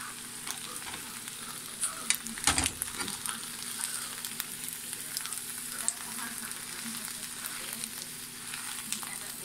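Macaroni and shredded cheddar sizzling as it fries in the pan, the cheese melting and crisping on the bottom, while a spatula scrapes underneath and turns the mixture over. Scattered light clicks of the spatula on the pan, with one louder knock about two and a half seconds in.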